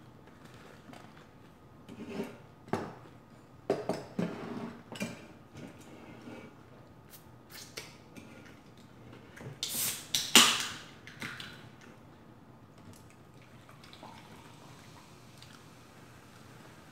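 Close-miked eating sounds: chewing and mouth noises, with a few light clinks and rustles as dishes and a small sauce cup are handled. The loudest noise is a brief hissing rustle about ten seconds in.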